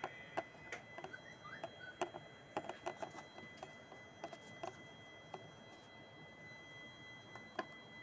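Faint, scattered small clicks and taps of a coffee maker's plastic housing and wire connectors being handled during reassembly, most of them in the first five seconds and one more near the end.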